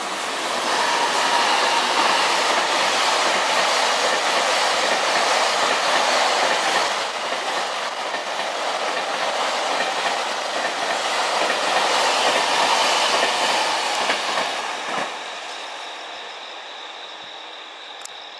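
Freight train passing: the rolling noise of the wagons swells about a second in and stays loud for some thirteen seconds. It drops off sharply near the end and fades as the last wagon goes by.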